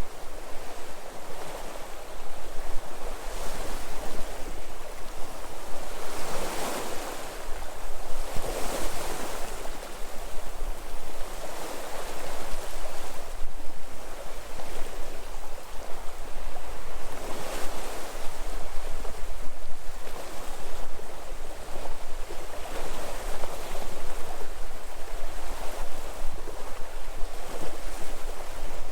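Sea waves washing onto the shore, surging in irregular swells every few seconds over a steady wash of surf.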